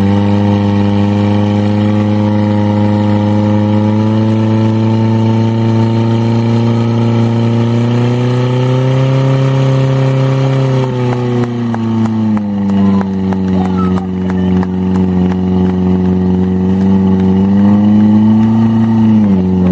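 Portable fire pump's engine (up-to-1500 cc class) running at high revs while it pumps water out to the hose jets, a loud steady drone. Its pitch climbs a little about nine seconds in, sags about twelve seconds in, rises again near the end and drops sharply just before the end.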